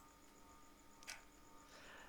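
Near silence: faint room tone with a steady electrical hum, one faint click about a second in, and a faint breath just before the end.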